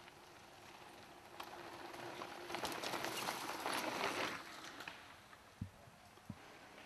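A mountain bike rides past close by on a dirt trail, its tyres crunching over dirt and dry leaves. The sound swells in the middle for about two seconds, then fades away.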